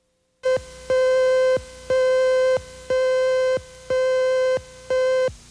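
Videotape leader cue tone: six evenly spaced electronic beeps of one mid-pitched tone, about one a second, each lasting just over half a second, counting down to the next segment. Low tape hiss follows the last beep.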